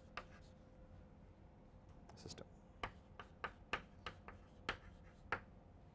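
Chalk writing on a blackboard: a faint, irregular series of sharp taps and short scratches as letters are written, thickest in the second half, with one longer scratchy stroke a little over two seconds in.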